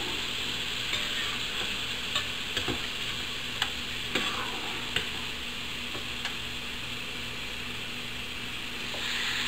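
Steady sizzling hiss of food cooking, with a few light clinks of a metal spoon against a saucepan as a cream sauce is stirred.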